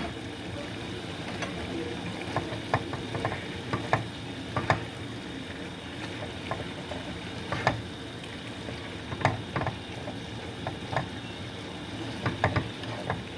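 Chicken in soy sauce sizzling in a nonstick frying pan while a slotted turner stirs it, with scattered clicks and scrapes of the utensil against the pan.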